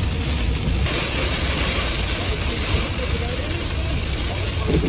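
Car driving through heavy rain, heard from inside the cabin: a steady low road and engine rumble under a loud hiss of rain and spray on the windshield, the hiss growing louder about a second in.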